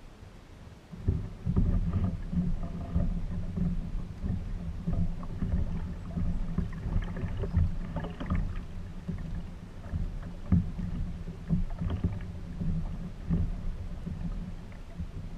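Fishing kayak under way on the water: a low, uneven rumble with a few short knocks, picked up by a camera mounted on the kayak.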